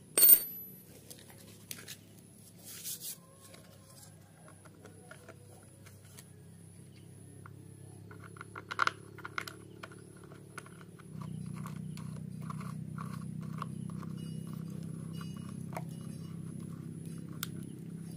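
Small clicks and scrapes of hard plastic and metal parts being handled as the air-filter cover is fitted over a brush cutter's carburettor, with a sharp clack just after the start. About eleven seconds in, a steady low hum starts and carries on.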